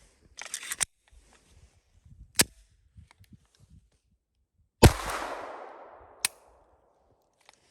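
Clicks and a sharp metallic snap from a Glock 44 .22 LR pistol being handled, then a single shot about five seconds in with its echo fading over a second and a half. A short sharp click follows. The pistol is feeding unreliably because the magazine spring is not pushing the rounds up.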